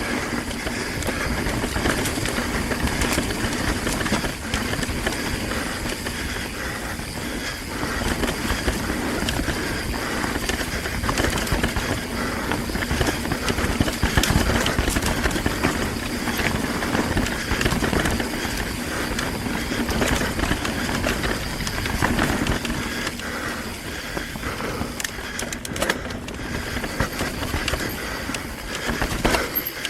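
Mountain bike descending a rough, rooty singletrack: tyres on dirt and roots, with the bike's frame and parts rattling over the bumps, and a steady low rumble of wind and vibration on the rider-mounted camera.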